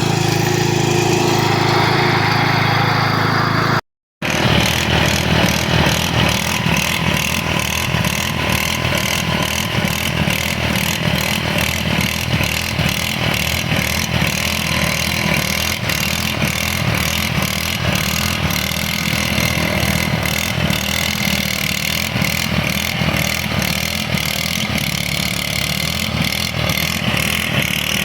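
Small Speedex garden tractor engine running steadily. After a brief cut about four seconds in, it runs on with a fast, even ticking clatter over the engine note.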